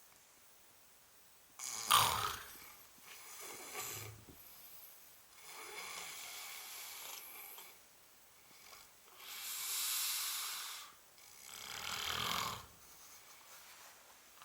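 A sleeping person snoring heavily. Rasping, rattling snores alternate with long airy breaths, about three breath cycles, the loudest snores about two seconds in and near the end.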